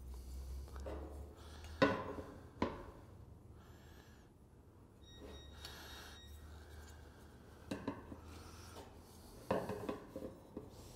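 A metal speed square and a marker worked against a bent sheet-metal trim piece while marking a cut line: a few light clicks of metal on metal, with faint rubbing and scratching between them over a steady low hum.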